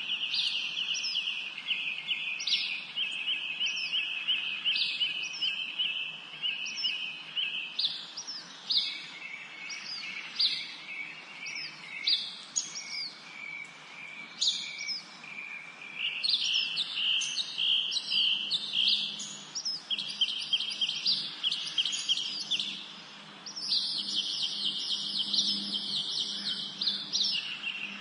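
Several songbirds singing and chirping together in a spring forest, rapid repeated chirps and trills with no pause.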